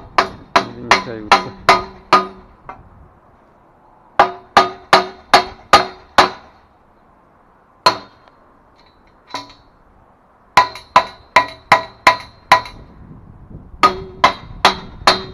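A hammer striking steel HAKI scaffold fittings, knocking the parts tight. The blows give ringing metal clangs in quick runs of five to seven, about three a second, with a couple of single blows between the runs.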